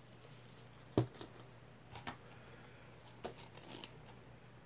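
A few light knocks and clicks of plastic paint cups being handled and set down on a plastic tray, the sharpest about a second in, over a faint steady hum.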